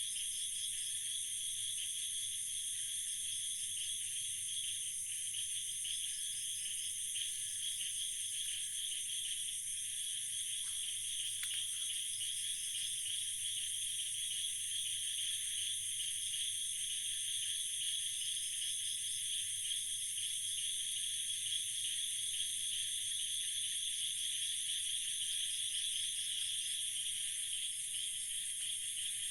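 Steady night chorus of insects, crickets and the like, a dense shrill trilling on several high pitches at once.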